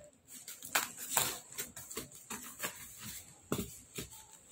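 Scattered scratches and short clicks of hands working at a stapled cardboard box to pry it open.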